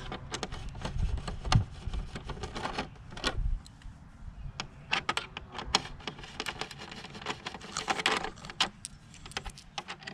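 Hand screwdriver with a hex bit clicking and clinking against the bolts as the side-panel bolts of a motorcycle's tail section are unscrewed, in irregular small clicks that come in clusters.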